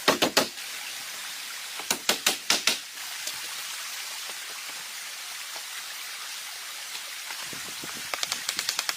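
Short runs of rapid knocking strikes, several a second, over a steady rushing hiss. One run comes at the start, one about two seconds in, and a longer one near the end.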